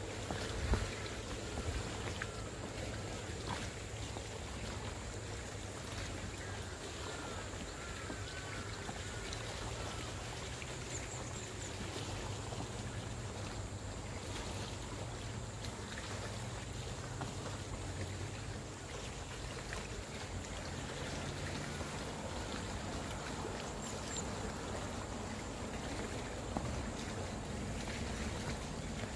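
Water lapping and trickling against the pontoons of an inflatable valley boat, a steady wash with a low hum underneath.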